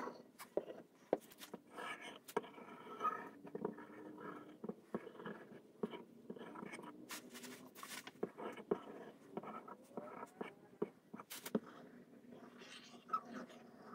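Scrapes, light taps and small knocks of wooden pieces being handled at a workbench while wood glue is squeezed onto them from a plastic bottle and spread.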